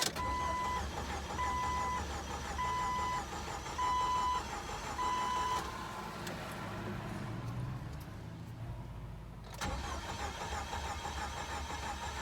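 A 1997 Jeep Wrangler's 2.5-litre four-cylinder engine being cranked by the starter without catching, with a short break about three-quarters through before cranking again; the no-start turned out to be a broken timing chain. A warning chime beeps five times, evenly spaced, over the first half.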